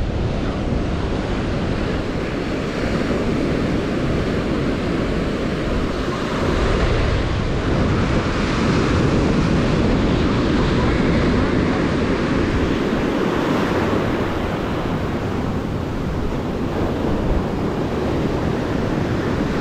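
Small surf breaking and washing up a sandy beach, with wind buffeting the microphone as a low rumble. The surf is a little louder from about six seconds in to about twelve.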